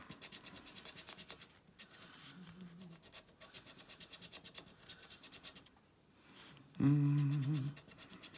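A coin scraping the latex coating off a paper scratch card in quick, even strokes, stopping about five and a half seconds in. Near the end comes a short, louder sound of a person's voice.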